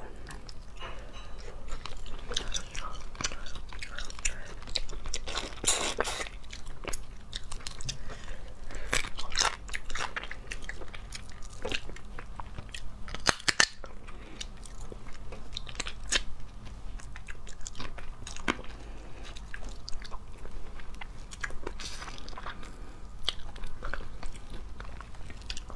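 Cooked crayfish shells cracking and crunching as they are broken open and peeled by hand, with chewing in between. Close to a clip-on microphone, the sounds come as irregular crackles and clicks, some clustered in quick runs.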